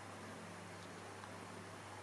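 Steady low hiss with a faint hum underneath: quiet room tone.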